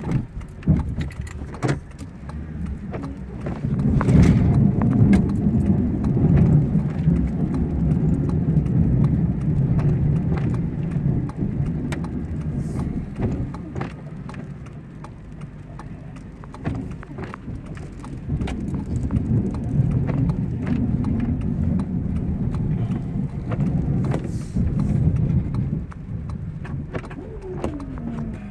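Ford F-150 pickup with a front snowplow working through a snowy driveway, heard from inside the cab: a low engine rumble that swells as the truck pushes snow, with many clicks and rattles.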